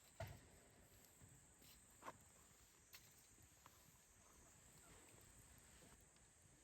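Near silence with a faint steady high-pitched insect drone and a few soft clicks and knocks, the clearest about two seconds in.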